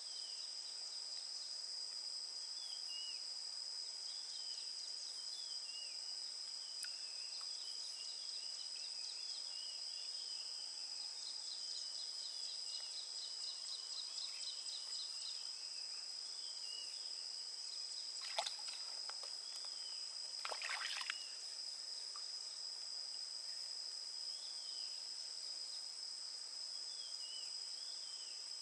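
Lake water splashing and streaming off a wet cast net as it is handled, with two louder splashes about 18 and 21 seconds in. Under it, a steady high insect drone and scattered bird chirps.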